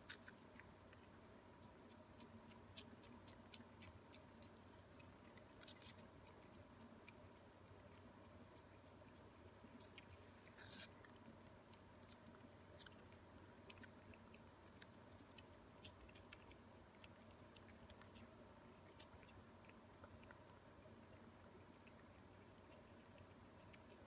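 Ragdoll cats licking a Ciao Churu lickable paste treat from its tube: faint, quick wet licking clicks, thickest in the first six seconds and scattered after, with one brief louder scratchy rustle about ten seconds in.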